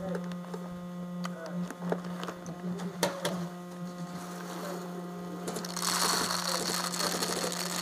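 Red airsoft speed loader being worked to reload BBs: scattered clicks and knocks, then from about six seconds in a dense, continuous rattle of plastic BBs being pushed through it. A steady low hum runs underneath.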